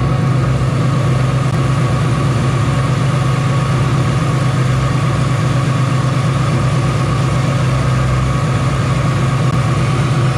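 Supercharged 4.6-litre V8 of a 2003 Mustang SVT Cobra idling steadily, with a constant low hum over a pulsing rumble.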